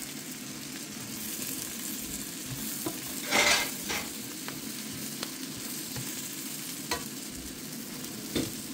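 White asparagus pieces frying in melted butter in a frying pan, with a steady sizzle. A spatula stirs and turns them, with one louder scrape about three and a half seconds in and a few light taps against the pan.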